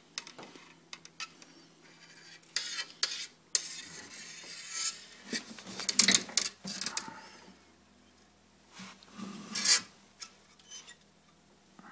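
Handling noise from a light fishing rod and sinker rig being moved about close to the microphone: irregular clicks, rubs and scrapes, loudest about halfway through and again near the end.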